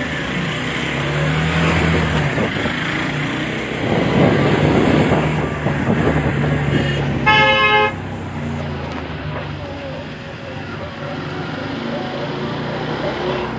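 Motor vehicle engine running steadily while driving slowly, with a louder rush of noise a few seconds in. A vehicle horn honks once, for about half a second, just past the middle.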